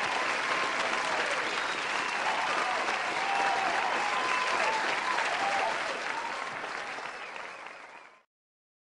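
Crowd applauding and cheering, with voices shouting over the clapping; it fades out near the end.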